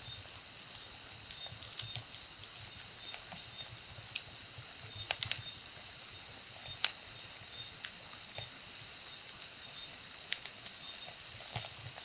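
Wood fire burning with a steady hiss and irregular crackles and sharp pops from the logs. The loudest are a quick pair of pops about five seconds in and a single snap about two seconds later.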